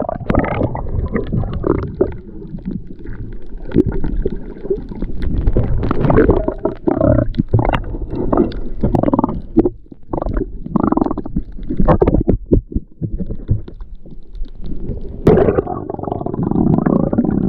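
Muffled underwater sound picked up by a submerged camera: low rumbling and gurgling of moving water with frequent knocks and thumps against the housing, turning into a denser, steadier rumble near the end as a swimmer comes close.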